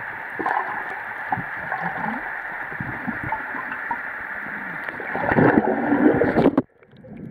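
Underwater sound of a camera lying in a swimming pool: a steady muffled water noise with small gurgles. About five seconds in it grows louder as a swimmer comes down to the camera, then cuts off suddenly near the end.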